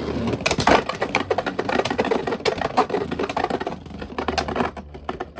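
Beyblade X spinning tops whirring and clattering in a plastic stadium, with rapid clicks and knocks that thin out about four seconds in.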